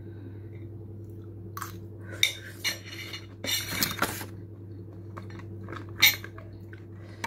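Tableware clatter: a fork clinking and scraping on a plate and a plastic food tub being handled, in a string of separate sharp clinks and rattles, the loudest about six seconds in. A steady low hum runs underneath.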